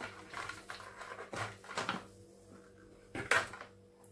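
Rustling and crinkling of a plastic pouch being folded shut, clipped and set down on a counter, with several short knocks; the loudest is a sharp knock a little after three seconds in.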